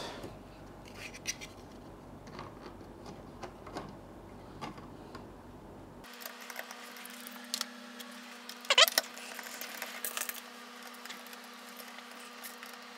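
Small handling noises of 3D-printed plastic parts: scattered light clicks and taps as pieces are fitted and a screwdriver turns small screws into the printed engine casing, with one brief squeaky scrape about nine seconds in. A faint steady hum comes in about six seconds in.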